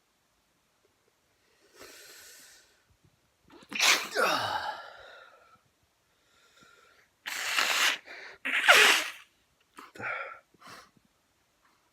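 A man's sneezing fit: a drawn-in breath, then three loud sneezes, the last two close together and the last the loudest, followed by two short breathy bursts.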